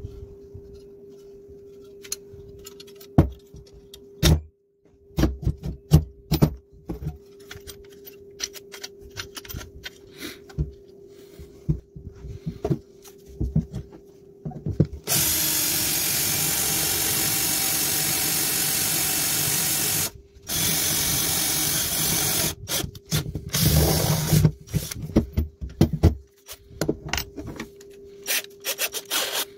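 Knocks and clicks of tools and parts being handled over a faint steady hum, then a power tool runs steadily for about five seconds, stops briefly, runs again, and then comes on in short irregular bursts.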